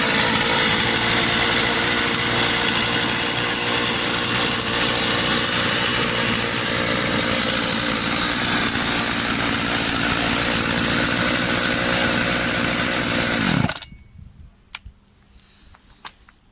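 Husqvarna 50 two-stroke chainsaw running steadily at high speed, then shut off about fourteen seconds in; the engine dies within a fraction of a second. A few faint clicks follow.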